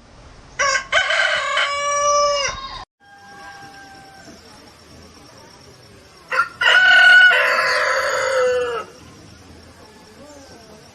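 Rooster crowing twice, about four seconds apart. Each crow is a short first note followed by a long drawn-out note lasting about two seconds that drops in pitch at the end.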